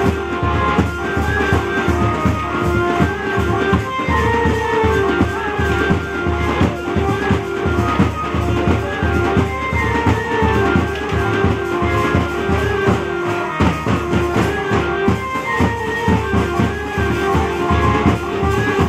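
Live band music for a lathi khela stick dance: bass drum and hand drums beating a fast, steady rhythm under a melody on an electronic keyboard.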